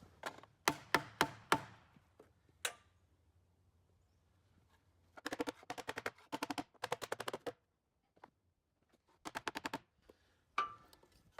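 Sawn boards being flipped over and knocked together on the sawmill bed: a quick series of sharp wooden knocks, then two runs of rapid clattering, and a last knock near the end.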